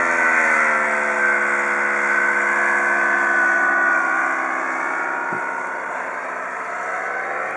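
Paramotor engine and propeller buzzing as the powered paraglider flies overhead. Its pitch falls over the first second, holds steady, and rises again near the end.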